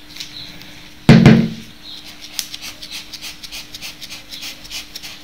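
A plastic puffer bottle being squeezed by hand to dust edible silver shimmer dust onto a cake, giving light, quick clicks and crinkles. A single loud thump about a second in, with a faint steady hum underneath.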